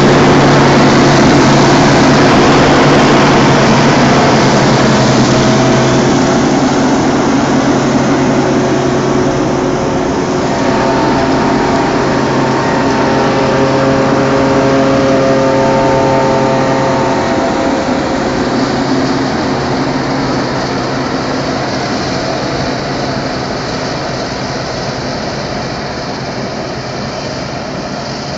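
Case self-propelled forage harvester running steadily under load while chopping sorghum: diesel engine and chopping machinery with a steady hum, slowly growing fainter.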